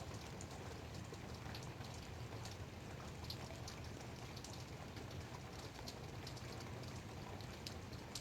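Light rain falling steadily, with scattered individual drops ticking on a surface.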